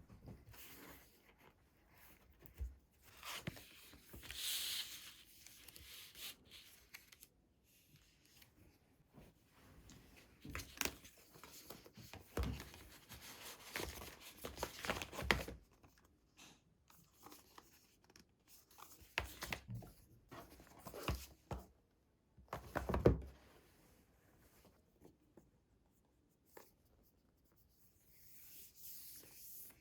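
Hands opening an Apple Watch box: paper and cardboard packaging rubbing, tearing and rustling in short irregular bursts, with light taps and clicks, the loudest handling noise about three-quarters of the way through.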